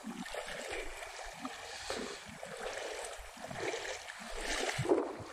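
Shallow water sloshing and lapping at the edge, with soft, irregular splashes.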